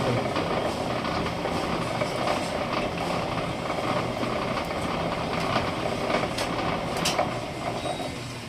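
Steady machinery running, with a few sharp clicks and knocks.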